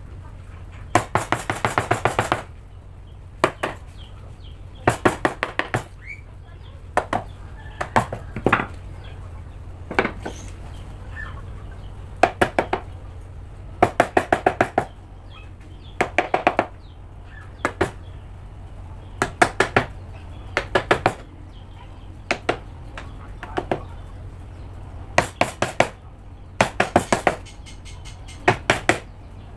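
Hammer striking a wood chisel in quick bursts of several blows at a time, a second or two apart, chopping out wood from a hand-saw handle.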